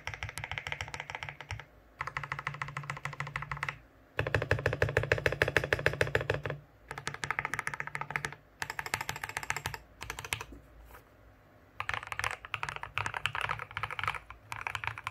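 Modded RK G68 hot-swap mechanical keyboard, fitted with lubed Gateron tactile and Fantasy linear switches and a foam-dampened case, being typed on fast. The keystrokes come in dense runs of clacks with short pauses between; the run around the middle is the loudest.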